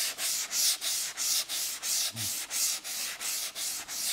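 400-grit sandpaper rubbed by hand back and forth over a gray-primed model rocket body tube, an even rhythmic scratchy rasp of about three strokes a second. This is finish sanding of the primer coat.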